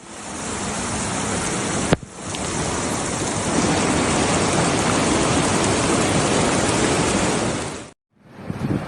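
Loud, steady rushing of water, broken by a sharp click about two seconds in, and cutting off suddenly near the end.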